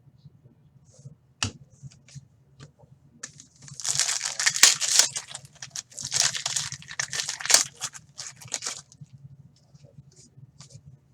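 Sports card pack wrapper being torn open and crinkled in hand, in two spells of crackling about four and six seconds in, with a few light clicks of cards being handled before and after.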